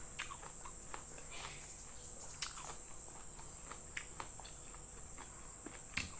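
Close-up mouth sounds of someone eating fried chicken liver and rice by hand: chewing, lip smacks and scattered sharp clicks, the loudest about two and a half, four and six seconds in. Under them runs a steady high-pitched hiss.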